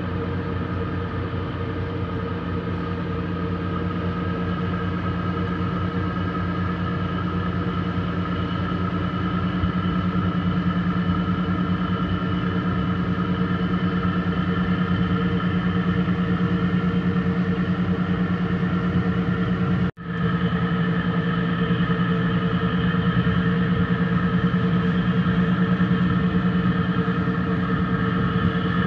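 A boat's engine running steadily with an even, pitched hum, growing a little louder over the first several seconds. The sound cuts out for an instant about twenty seconds in, then carries on.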